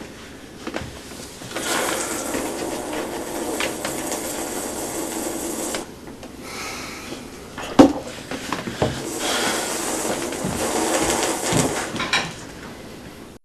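Breakfast-table handling noise: cereal box and cartons handled and poured into a bowl in two long rustling stretches, with one sharp knock on the table about eight seconds in.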